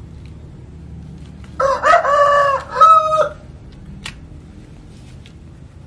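A rooster crowing once, starting about a second and a half in: one call of under two seconds in three joined parts, the last part higher and shorter.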